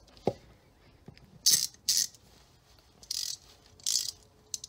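Freshly rebuilt Craftsman 3/8-inch pear-head ratchet (model 44808/44811) worked by hand: a single click, then four short bursts of rapid ratcheting clicks from the new pawl mechanism. It is ratcheting freely again after the rebuild.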